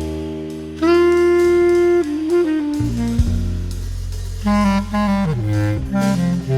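Small jazz ensemble playing, a woodwind carrying the melody: a long held note about a second in, then a moving phrase, over low sustained bass notes.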